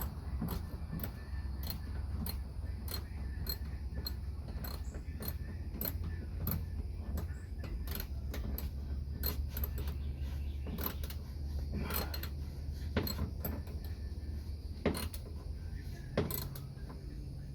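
Rear seat of a 1967 Chevy Impala being handled and worked into place: many small clicks and creaks, with a few louder knocks in the second half, over a steady low hum.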